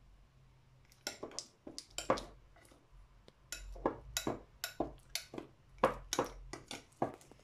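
A metal teaspoon stirring glue and slime activator in a bowl, clinking and scraping against the bowl over and over from about a second in, about two or three strikes a second. The mixture has not yet set into slime.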